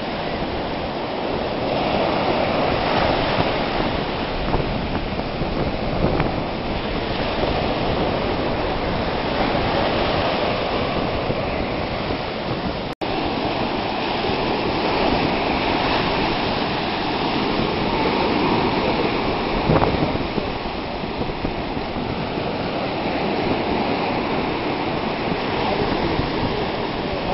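Ocean surf washing and breaking on a beach, swelling and easing every few seconds, with a brief dropout about halfway through.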